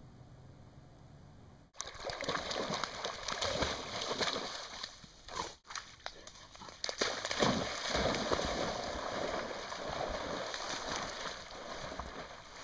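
Water sloshing and splashing, as of small waves washing against a shore, starting suddenly a couple of seconds in after a faint low hum and surging unevenly, with a brief break before the middle.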